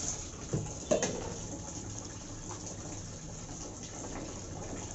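Hands swishing and rubbing vegetables in a plastic tub of soapy water, with water sloshing and splashing throughout. There are two sharper splashes, about half a second and a second in.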